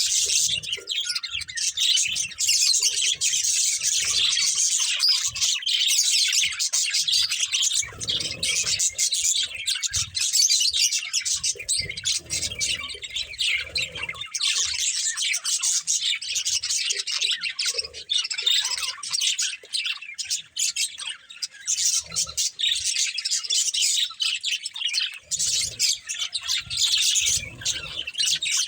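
Budgerigars chirping and chattering continuously, a dense stream of rapid high chirps and warbles with no pause.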